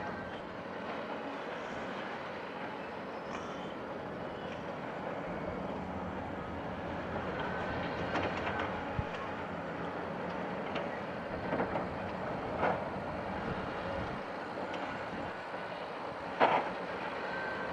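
Large crawler bulldozer working on a loose rock slope: a steady clatter of the machine and of spilling rock and gravel, with a few sharper knocks, the loudest near the end.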